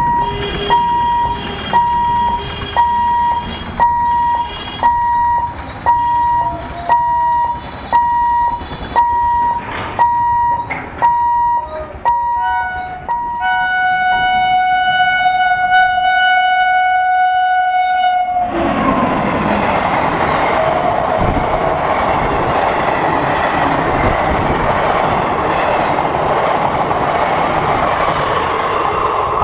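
Kaviguru Express locomotive horn sounding a long run of short, rapid toots, about three every two seconds, then one long blast of about five seconds on a lower note, warning traffic at the level crossing. The train then passes close by with a loud, steady rush of wheels and carriages on the track.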